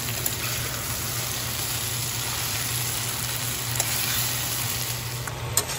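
Vegetables sizzling in hot oil in a stainless steel kadai while a metal spatula stirs them, with a few light clicks of the spatula on the pan. The vegetables are being sautéed down with mustard paste and spices.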